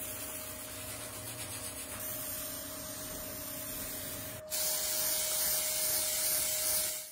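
Lathe running with a steady hum while a cloth pad rubs against a spinning cast-resin lamp shade, making a continuous hiss. About four and a half seconds in the hiss turns louder and brighter, then stops abruptly.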